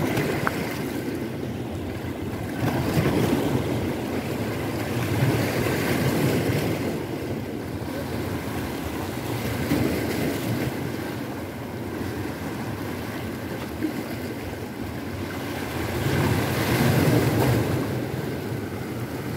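Sea waves breaking and washing over the rocks of a jetty, the surf swelling and ebbing every few seconds.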